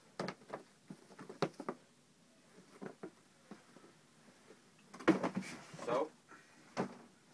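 Sneakers and a cardboard shoebox being handled: scattered light taps and knocks, then a louder scuffing clatter about five seconds in as the box is moved.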